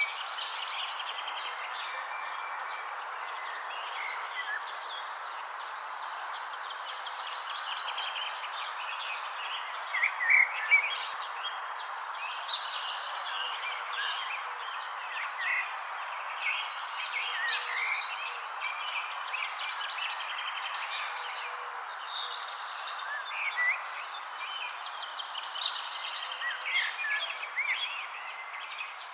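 Outdoor nature ambience: a steady high insect trill over a soft hiss, with short bird chirps scattered throughout, loudest about ten seconds in.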